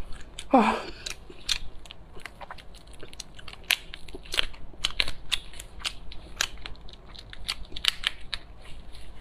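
Shells of steamed black tiger prawns cracking and snapping as gloved hands peel them: an irregular string of sharp clicks and crackles, with one short falling sound about half a second in.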